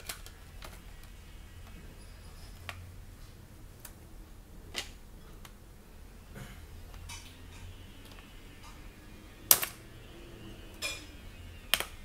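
Scattered small clicks and taps of plastic and metal parts as a laptop DVD drive is handled and its mounting bracket worked at. The loudest sharp click comes about three quarters of the way through.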